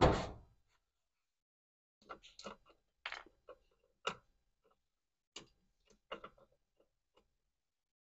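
Short, sharp plastic clicks and taps, about half a dozen scattered a second or so apart, as a new plastic cam ring from an Electrolux 15 kg washer's cam kit is handled and fitted onto the steel plate of the washer's transmission.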